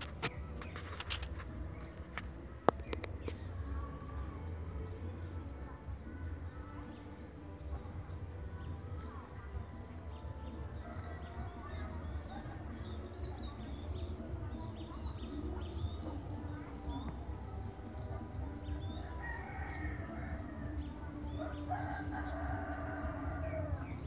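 Outdoor bird chorus: many small birds chirping in quick high notes over a steady high insect-like hum and a low rumble. A sharp click comes about three seconds in, and a longer, lower call with several pitches sounds in the last few seconds.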